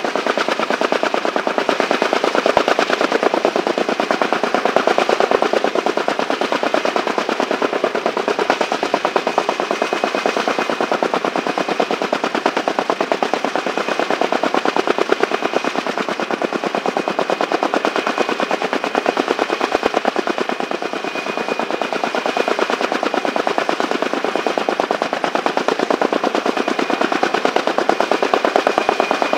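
Kaman K-MAX helicopter's intermeshing twin rotors beating in a rapid, steady chop, with a faint high steady whine above it.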